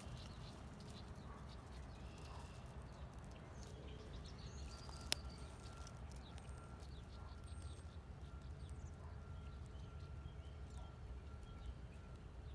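Faint outdoor ambience: a low rumble of wind on the microphone, with scattered faint bird chirps and a single sharp click about five seconds in.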